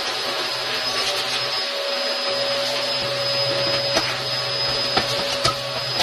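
Shop vacuum running steadily, sucking sawdust off a miter saw, with a few light knocks of the nozzle against the saw near the end.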